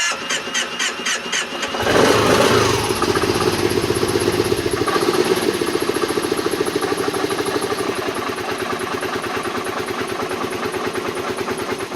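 2010 Kawasaki Teryx 750's V-twin engine cranking on its starter, catching about two seconds in and then running with a fast, steady beat. It is a hard cold start: the engine fires and keeps running only with throttle held, and will not idle until it has warmed up.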